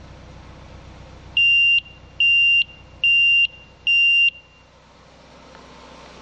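Smartwares carbon monoxide alarm sounding four loud, high-pitched beeps in quick succession, each under half a second, then stopping. This four-beep group is the standard carbon monoxide alarm signal.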